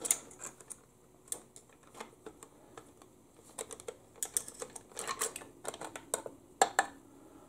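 Clutch plates of a Toyota U140 automatic transaxle, steels and friction discs, clicking and clinking against one another and the case as they are worked out of the clutch pack by hand. The clicks are irregular and sharp, coming thickest past the middle and again near the end.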